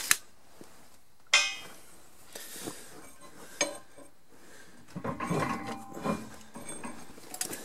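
Steel parts being set up on a hydraulic shop press: a few sharp metal knocks and clinks, one ringing about a second and a half in, then a stretch of metal scraping and clattering around five to six seconds in as the steel press plate is pushed into place.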